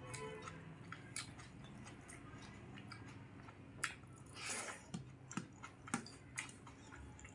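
Close-miked eating sounds: chewing with small wet mouth clicks and smacks as a mouthful of rice and curry is eaten, with a brief noisy rush about four and a half seconds in.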